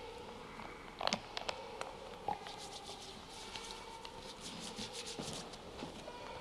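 A few light knocks about a second in, then soft rustling and faint ticking from communion vessels and cloth being handled at the altar, over a faint steady hum in a quiet church.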